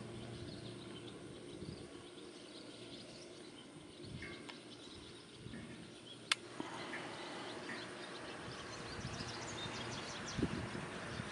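Quiet outdoor ambience of a horse being ridden in a sand arena: soft, irregular hoof thuds on the footing with birds calling in the background. A single sharp click about six seconds in.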